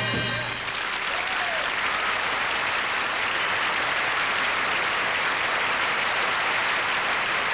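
A large theatre audience applauding steadily, just after the band's final chord cuts off about half a second in.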